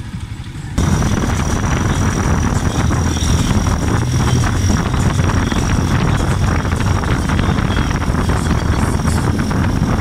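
Motorcycle engine running steadily as the tricycle rides along, mixed with road and wind noise; the sound gets abruptly louder about a second in.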